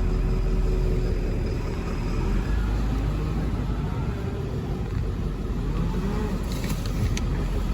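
Wind buffeting the microphone: a heavy, steady low rumble, with a few sharp clicks near the end.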